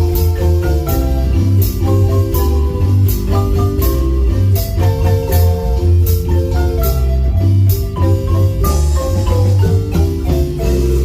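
Marimba ensemble playing a fast tune, rapid struck mallet notes over a steady bass line.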